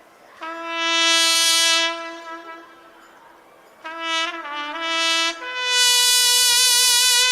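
Solo trumpet playing three long held notes. The second note dips in pitch and comes back, and the third is higher, with vibrato, held for about two seconds.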